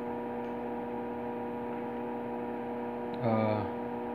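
Steady electrical hum made of several held tones, with a short murmured voice sound from the man about three seconds in.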